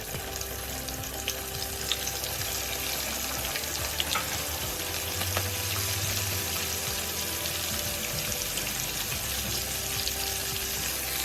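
Flour-coated hake fillets deep-frying in hot oil: a steady sizzling hiss with scattered small crackles and pops.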